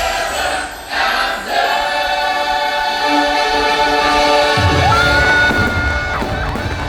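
Fireworks show soundtrack: a choir sings long held chords over orchestral music. About two-thirds of the way in, firework bursts join with a low rumble and crackle.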